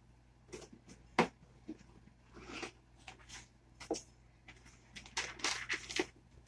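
Cardboard box being opened by hand: a few knocks and taps as the lid is worked loose and lifted off, the sharpest about a second in, then paper rustling near the end as the wrapping inside is folded back.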